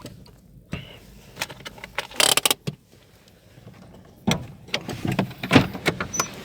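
A car occupant climbing out of a car: scattered knocks and clicks of door and handling noise, with a brief rustling burst a little after two seconds in and a cluster of knocks later on.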